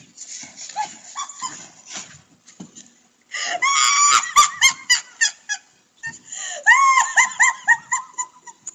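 A woman shrieking with hysterical, high-pitched laughter in two long runs of rapid bursts, picked up by a security camera's microphone. Before it come a few seconds of scuffling on the wooden deck as the dog tugs at her hood.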